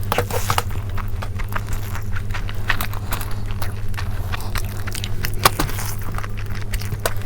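Close-miked eating of chicken curry and rice: irregular wet clicks, smacks and crackles of chewing, over a steady low hum.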